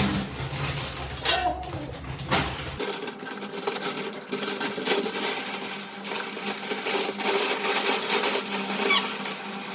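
Dry puffed rice (mandakki) poured and tipped into a big bowl: a dense, crisp rustling patter of many tiny grains falling.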